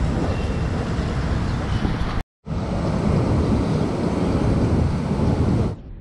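Wind buffeting the microphone: a steady rush of noise, heaviest in the low end, broken by a brief dead gap a little over two seconds in and stopping abruptly near the end.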